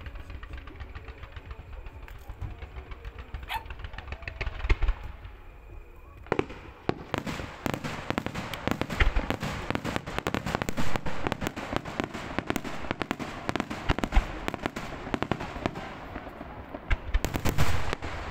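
Fireworks display: a few scattered bangs, then from about six seconds in a dense run of rapid bangs and crackles, with another loud cluster of bangs near the end.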